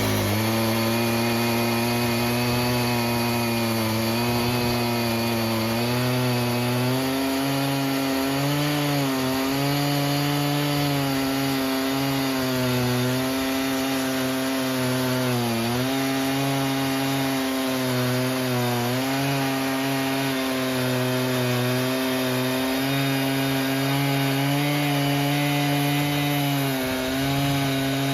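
Stihl MS 880 chainsaw, a big two-stroke, running at full throttle as it rips a milling cut through a dry, hard yew log on a Logosol F2 chainsaw mill. The engine note holds steady under load, dipping briefly in pitch now and then as the cut bites, most noticeably about halfway through.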